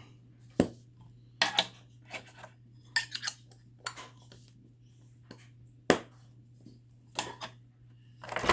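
Small plastic putty containers clicking and knocking on a table as they are closed and lined up: a string of sharp clicks, a second or so apart, with quiet between.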